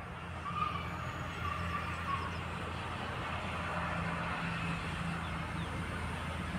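Steady outdoor background noise over a low, even engine hum from vehicles.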